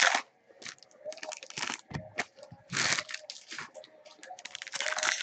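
Football trading cards and their pack wrappers rustling and crinkling in hands, in short irregular bursts.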